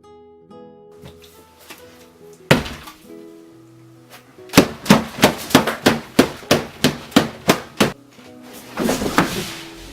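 Background music with soft plucked notes, cut by a loud thump about two and a half seconds in. Then comes a quick run of about a dozen sharp knocks, roughly three a second, followed by a short noisy rush near the end.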